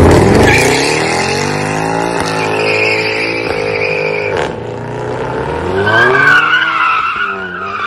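A car engine revving hard, its pitch climbing at the start, with tyres squealing loudly in a hard launch or burnout; the squeal drops away about four and a half seconds in, then returns with a wavering pitch near the end.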